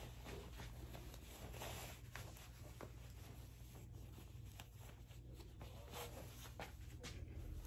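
Faint rustling of shirt fabric as the sleeves and shirt are adjusted, with a few soft scratches and ticks, over a steady low room hum.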